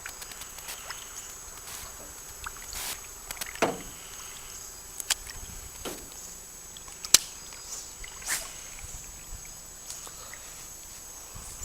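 Scattered light knocks and sharp clicks from fishing gear being handled in a small boat, spaced a second or more apart, over a faint steady high-pitched tone.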